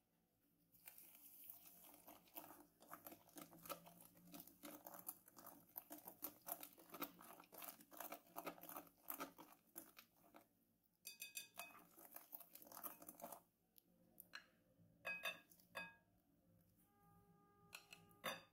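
A whisk beating a thin batter in a glass bowl: a fast, continuous run of wet swishing and clicking taps against the glass for about twelve seconds, then it stops and a few louder knocks follow.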